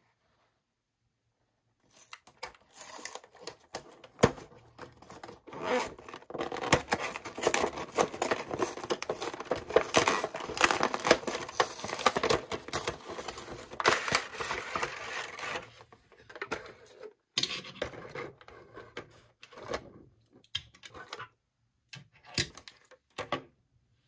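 Toy packaging being torn and crinkled open: a dense run of tearing and crackling from about two seconds in, thinning to a few short rustles near the end.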